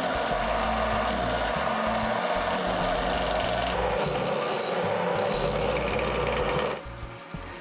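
Drill press boring a hole through a steel strip with a twist drill bit: a steady whir of the bit cutting metal, dropping slightly in pitch about halfway through and stopping near the end.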